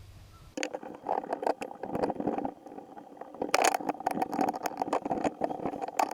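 A small power tool running with a rattling, scraping contact, starting sharply about half a second in, as grime is cleared from the driveshaft universal joint to expose its bearing-cup retaining rings.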